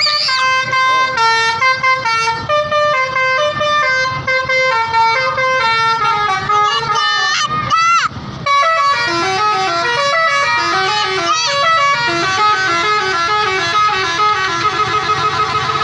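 Tour bus 'telolet' musical air horn playing a loud, stepped multi-note melody. About eight seconds in it gives a few quick rising sweeps, then switches to a fast run of alternating notes.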